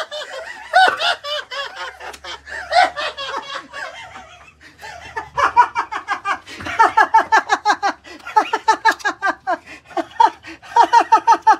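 A person laughing in quick, high-pitched runs of 'ha-ha-ha', about five or six pulses a second, with a short pause around four seconds in before a longer run to the end.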